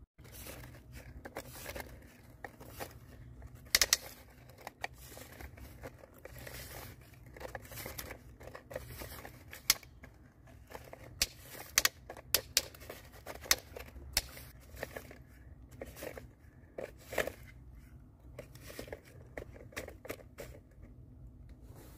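Loose garden soil crunching and crackling as a toy excavator's plastic bucket scrapes and scoops into a dirt mound. Irregular sharp clicks and taps are scattered throughout, with the loudest ones a little under four seconds in and between about eleven and seventeen seconds.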